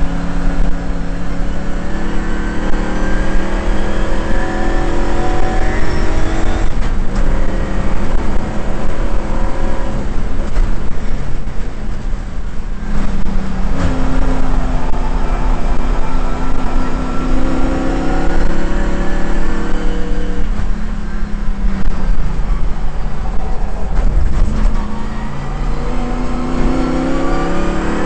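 Shelby GT350's V8 at racing speed on a circuit, heard onboard. The engine note climbs steadily under acceleration and drops back several times as the driver lifts off or changes gear, then climbs again.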